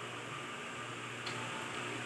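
Steady background hiss, with one faint click a little past halfway.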